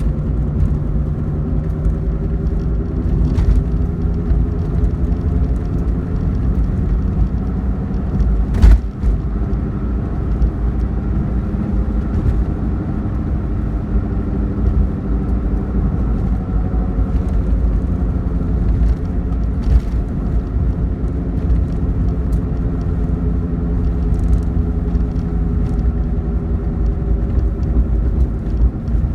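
A car being driven, with engine and road rumble throughout; the engine note drifts slowly lower and later rises again. One sharp knock sounds about nine seconds in.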